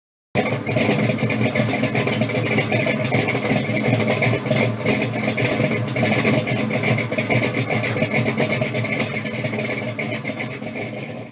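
A car engine running loudly and steadily with a rapid, rough pulse. It starts abruptly and dies away near the end.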